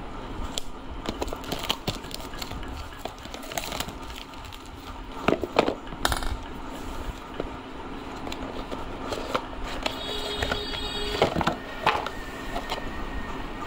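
Handling of a phone in its plastic sleeve and cardboard box: irregular crinkling, clicks and light knocks, over a steady low hum.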